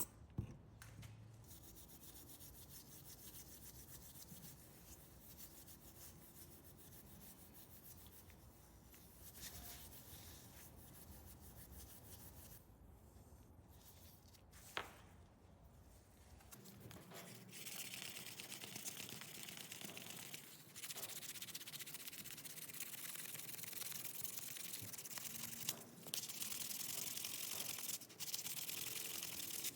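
Hand rubbing with an abrasive on a part: faint for the first half with a sharp click about halfway, then steady, louder scrubbing from just past halfway.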